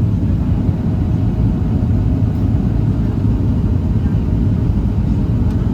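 Cabin noise of a Boeing 737-700 during landing: a steady, loud low rumble of its CFM56 engines and airflow, with a faint steady hum above it.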